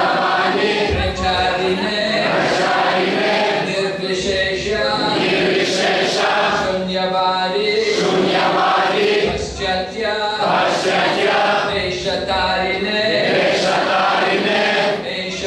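A crowd of devotees chanting together in a devotional kirtan, many voices singing in unison.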